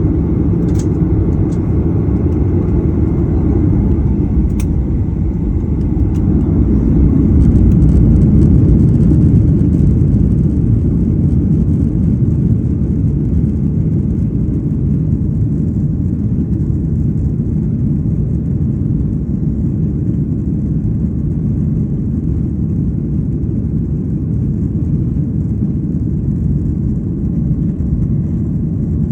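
Passenger aircraft taking off: a loud, steady low rumble of engines and airframe that swells briefly about eight seconds in and then holds steady.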